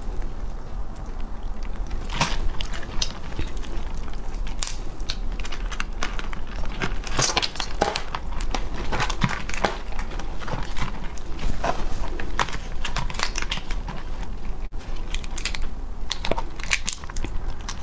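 Shells and legs of small raw marinated crabs cracking and crunching as they are pulled apart by hand, in irregular sharp clicks and crackles.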